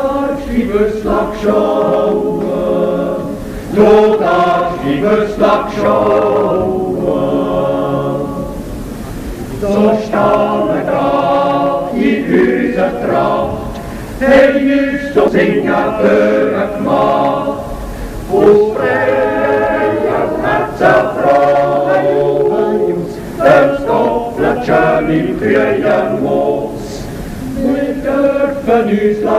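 Male choir singing a capella in several-part harmony, in phrases a few seconds long with short breaks between them. No words are made out, which fits a wordless Swiss yodel.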